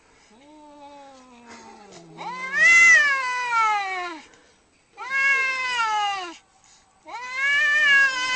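Angry domestic cat yowling: a quiet, low drawn-out moan that sinks in pitch, then three loud, long wails, each rising and then falling in pitch.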